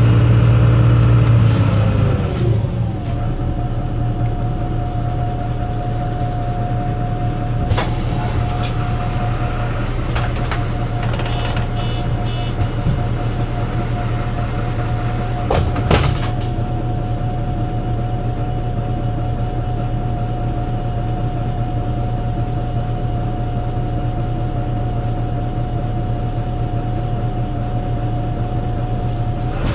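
MAN NL 263 city bus with its D08 diesel engine, standing still. The engine falls back from a rev to idle over the first couple of seconds, then idles steadily with a constant higher whine over the engine hum. A few brief clicks come about a quarter and about halfway through.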